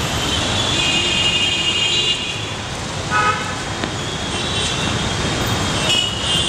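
Busy road traffic running steadily, with several vehicle horns honking, a short loud honk about three seconds in.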